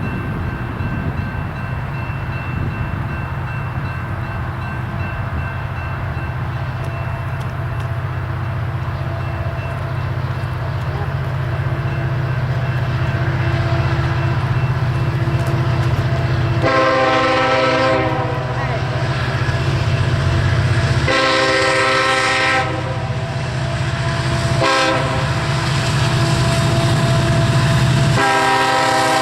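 Norfolk Southern freight train with EMD SD70M-2 and GE Dash 8-40CW diesel locomotives approaching, the engine rumble growing louder. Over the second half the locomotive horn sounds two long blasts, one short and a final long one starting near the end: the standard warning pattern for a grade crossing.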